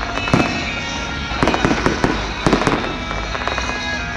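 Fireworks exploding in quick clusters of sharp bangs, over a steady background din with music playing.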